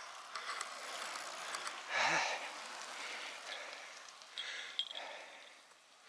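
Road bicycles going past, with faint freewheel ticking from coasting wheels over a rush of air and tyre noise. A short pitched sound comes about two seconds in.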